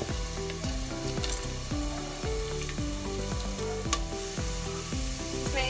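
Whole spices and sliced onions sizzling in hot oil in a pressure cooker, with a couple of light clicks. Quiet background music with slowly changing low notes runs underneath.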